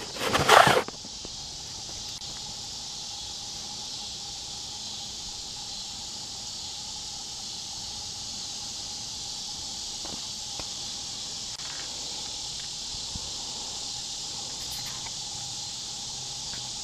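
Steady high-pitched chorus of insects, an even buzz that holds through the whole stretch. A brief, loud scuffing noise falls in the first second.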